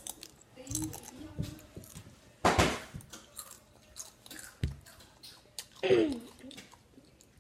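Chips being chewed: irregular crunches and crackles. A short vocal sound comes about six seconds in.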